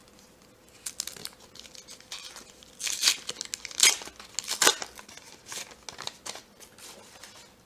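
Foil wrapper of a trading-card pack crinkling and tearing as it is pulled open. It comes as a run of sharp crackles, loudest about three to five seconds in.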